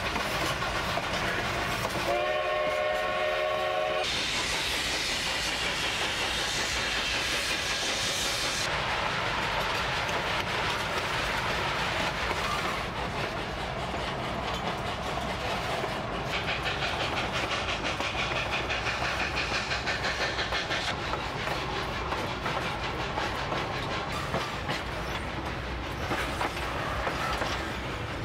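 Narrow-gauge steam train running, heard from aboard: a steady rumble and clatter of wheels on rail joints. About two seconds in, the locomotive's steam whistle sounds once for about two seconds.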